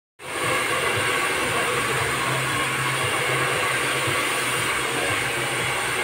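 A steady rushing noise with a low hum beneath it, starting abruptly a moment in.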